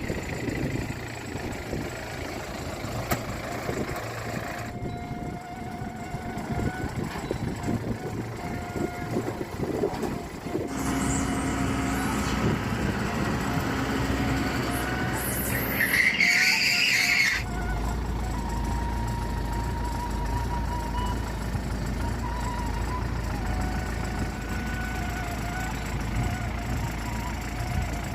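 Motor engines running through a series of cut shots, with a brief high-pitched squeal a little past the middle and a steady low engine hum in the last ten seconds.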